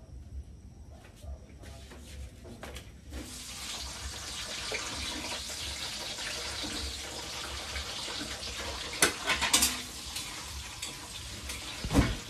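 Sliced eggplant frying in hot oil in a wok: a steady sizzle that starts about three seconds in as the slices go into the pan. Two sharp clicks about nine seconds in and a thump just before the end.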